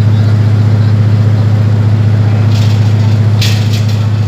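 Generator engine running at a steady speed, a constant low drone with evenly spaced overtones.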